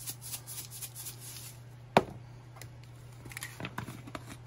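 Seasoning containers handled over a plastic colander of cut calamari: light scattered ticks and rattles, and one sharp click about two seconds in, with a few small clicks later on. A low steady hum runs underneath.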